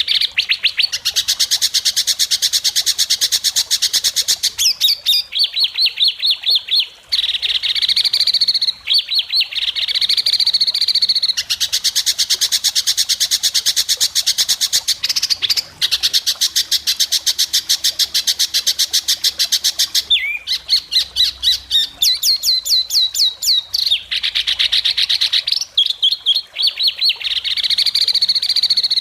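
White-rumped shama (murai batu) singing almost without a break: long runs of very fast, sharp repeated notes (besetan), with a few short pauses and sweeping notes where new phrases begin.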